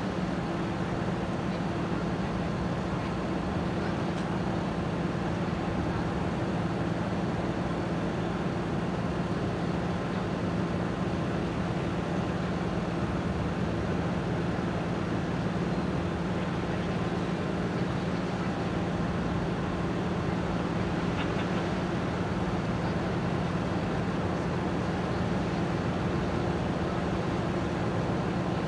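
Steady drone of a ship's engine: a low, even hum with a higher overtone above it, over a constant wash of water and wind noise.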